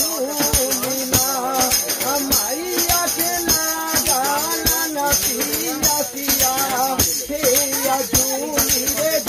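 A person singing a wavering melody while playing a pink plastic tambourine: repeated jingling strikes of its metal jingles under the voice.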